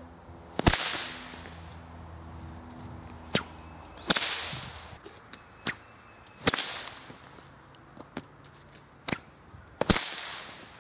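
Homemade duct tape whip with a steel-cable core being cracked: four loud, sharp cracks two to three seconds apart, each trailing off briefly, with fainter snaps between them.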